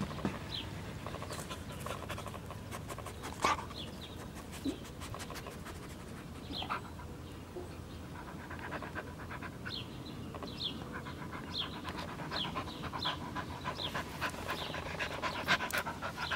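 A dog panting close up, in quick regular breaths, with short high chirps repeating in the background.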